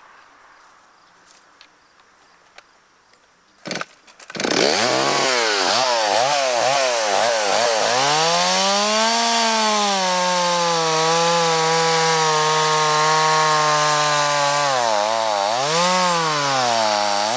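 Stihl 026 two-stroke gas chainsaw: about four seconds in it revs up sharply, blipping up and down, then holds a steady, lower-pitched pull under load as it cuts through a log, rising and falling again near the end.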